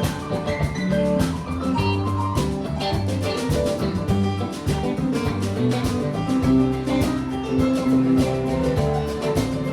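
Band playing an instrumental passage: guitar leading over a steady beat, with no singing.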